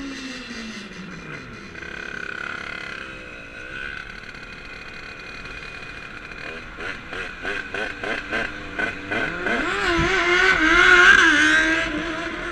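Two-stroke engine of a Rieju MRT with an 86 cc aluminium cylinder kit, revving. Its pitch falls in the first second or so. From about halfway it revs in quick pulses, about three a second, then runs up in one long rev that is loudest near the end before easing off.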